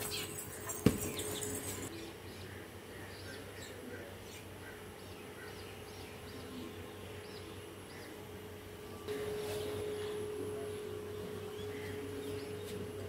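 Faint background ambience with small birds chirping. A single sharp knock about a second in, and a steady hum that starts about nine seconds in.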